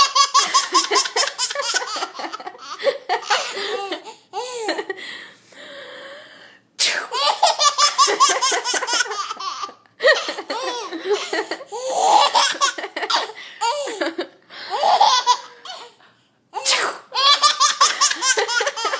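A baby laughing hard in long fits of belly laughter. A person sneezes about seven seconds in and again about two seconds before the end, and each sneeze sets off a fresh fit of laughing.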